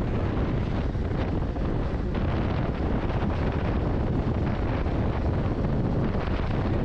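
Steady wind noise buffeting the microphone of a motorcycle moving at road speed, with the Hero Xpulse 200 4V's single-cylinder engine running underneath.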